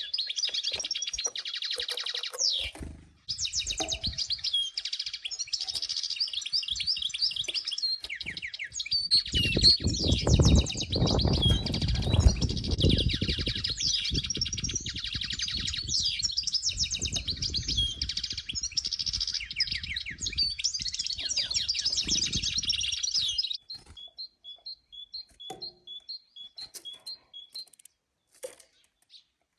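Sparrows and tits chirping in a dense, busy chorus, with a low rumble through the middle stretch. The chorus stops abruptly near the end, leaving a single bird repeating a two-note call about twice a second.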